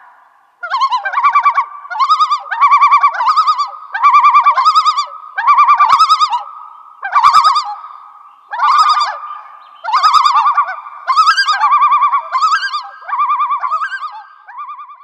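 Common loon yodelling: about a dozen loud, wavering phrases repeated one after another with short gaps. The yodel is the male loon's territorial call.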